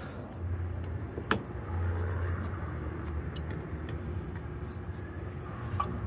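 Carrier rooftop gas package unit running with a steady low hum, with a sharp click about a second in.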